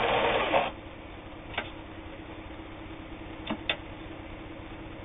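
Kenmore 158.19802 sewing machine running a straight stitch, stopping under a second in. Then a faint steady hum, one light click, and two more clicks close together later on.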